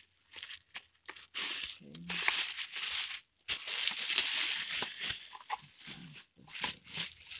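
Plastic packaging (clear plastic bags and bubble wrap) crinkling and rustling as it is handled, in several bursts with short pauses between them.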